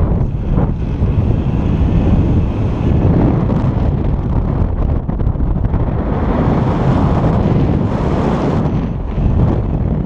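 Wind buffeting the microphone of a camera on a paraglider in flight in high wind: a loud, steady rushing noise that swells louder and brighter for a couple of seconds after the middle.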